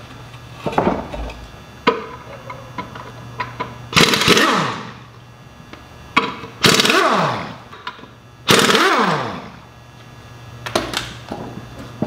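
Pneumatic impact wrench spinning the lug bolts off a tractor's rear wheel in three bursts of about a second each, its pitch falling as each burst winds down. A few light clicks and clanks sound between the bursts.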